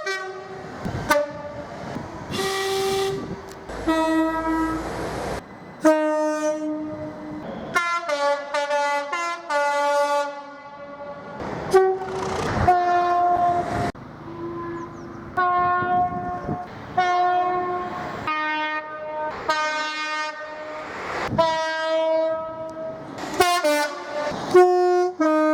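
Multi-tone train horn sounded as a tune: a long run of short blasts on several different pitches, one after another, with a few longer held notes.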